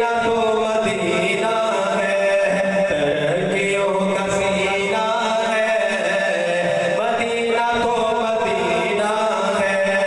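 A male naat reciter singing into a microphone in a long, unbroken line whose pitch bends and slides, over a steady low drone.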